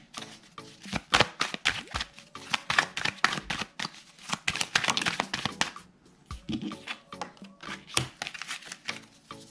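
A deck of oracle cards being shuffled and handled: rapid runs of crisp card flicks and slaps in bursts, with short pauses between, over soft background music.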